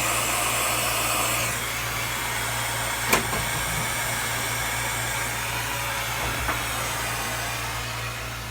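Steady rushing of a metal-melting furnace's air blower over a low hum, the hiss easing off a little about a second and a half in, with one sharp knock about three seconds in.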